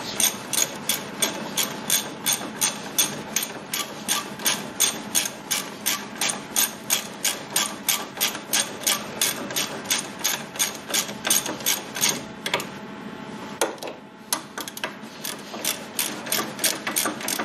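Ratchet wrench clicking steadily, about three clicks a second, as a brake caliper bolt is run in. The steady clicking stops about twelve seconds in, and a few scattered clicks follow.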